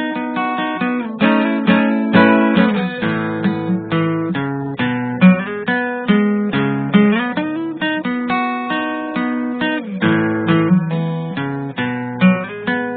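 Instrumental background music: a guitar playing a steady run of quick plucked and strummed notes.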